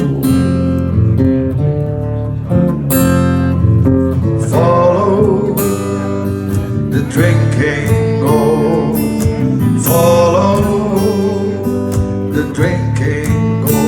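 Live acoustic blues band playing an instrumental intro: strummed acoustic guitar, joined about four and a half seconds in by a wavering melody line.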